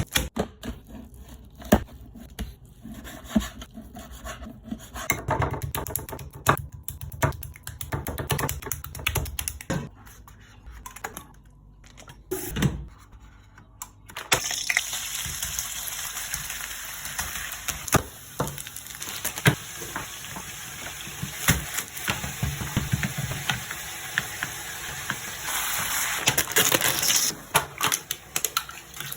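Kitchen cooking sounds: scattered knocks and clatter of utensils and cookware, then about halfway through a steady hiss starts and runs until near the end, with more knocks over it.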